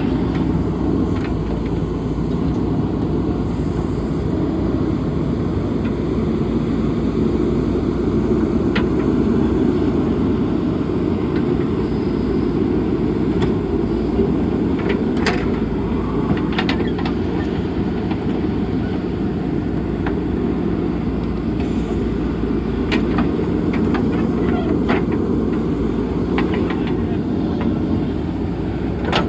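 JCB backhoe loader's diesel engine running steadily under load, with scattered short metallic clanks and knocks.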